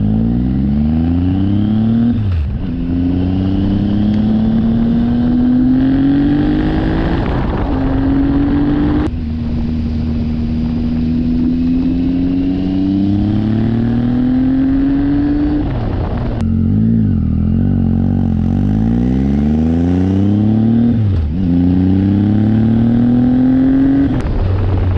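Triumph Tiger 800's 800 cc inline-three running through a decatted Lextek VP1 exhaust, accelerating under load on the road. The engine note climbs and falls back several times, as at gear changes, over a steady hiss of wind and wet-road spray.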